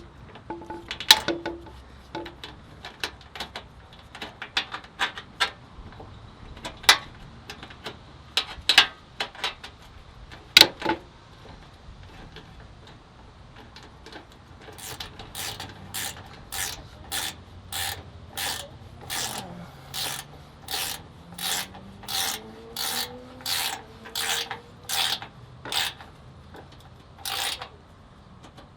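Ratchet wrench and socket tightening a nut on a light-bar mounting bolt: scattered clicks at first, then about halfway through a steady run of short ratcheting strokes, about one and a half a second.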